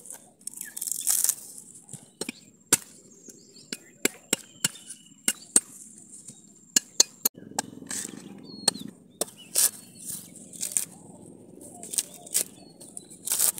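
Heavy curved knife chopping into the dry fibrous husk of a mature coconut, a string of sharp, uneven chops, with husk fibres torn away by hand.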